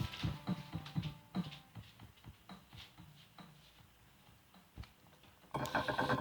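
The song's backing music winds down: sharp percussive hits with a few held tones, thinning out and growing quieter. A short, dense burst of clattering comes near the end.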